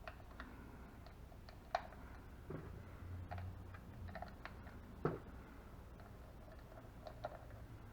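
Scattered light clicks and taps of a Mojo Flock-a-Flickers duck decoy's plastic housing being handled as its back cover is fitted on. Two of the clicks are a little louder, one just under two seconds in and one about five seconds in.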